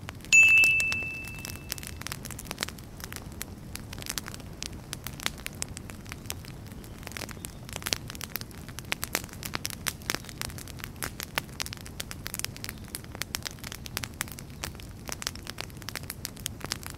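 Fire crackling: a steady low rumble under dense, irregular snaps and pops. Near the start a bright chime rings out for about a second and a half.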